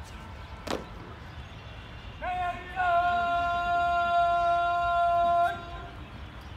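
Drill commander's shouted word of command for a ceremonial guard drill, drawn out in the parade style: a short call about two seconds in, then one long held, high note of about three seconds that lifts at its end.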